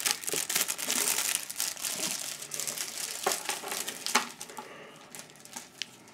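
Clear plastic packaging crinkling as it is handled, with a couple of sharper clicks about three and four seconds in; it dies down near the end.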